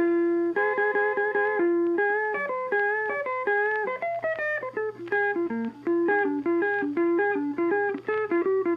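Background music: a plucked guitar playing a quick, rhythmic melody.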